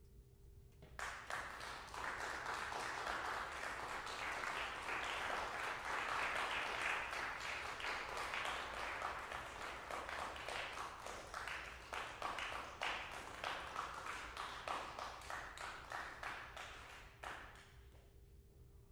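Audience applauding after a tuba and piano performance ends: dense clapping that starts about a second in, holds steady, then thins out and dies away near the end.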